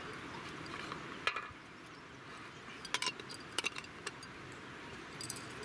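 A few light metallic clicks and clinks as a Primus 2243 gas stove burner is handled and fitted onto its gas canister.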